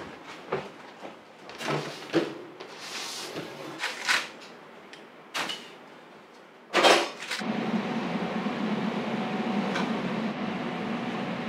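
Bakery kitchen work sounds: scattered light knocks and clatter of trays and utensils being handled, a louder thump about seven seconds in, then a steady machine hum with a faint hiss.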